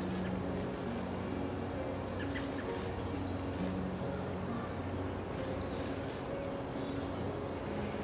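Insects, a cricket chorus, trilling steadily on one continuous high tone. Soft, low held notes change pitch underneath every second or so.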